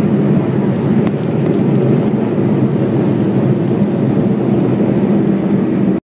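Steady low rumble of jet airliner cabin noise heard from a window seat, the underwing jet engine running while the plane rolls on the ground.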